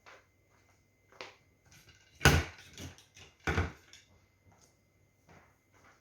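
Two loud knocks about a second apart, with lighter clicks and knocks around them: hard objects being handled and set down on a work surface.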